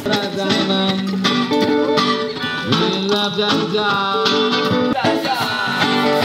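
Guitar-led music, plucked strings with some notes bending in pitch.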